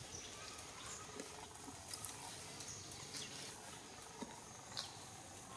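Faint crackling and rustling of dry leaf litter as baby monkeys move over it, with a few sharp clicks scattered through.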